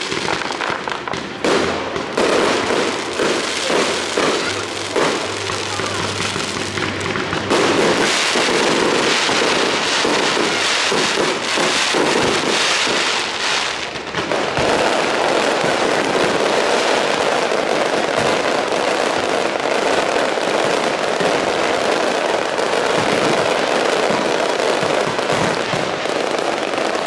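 Fireworks display: aerial shells bursting with rapid bangs and crackling. About halfway through, the reports run together into a steady, unbroken din.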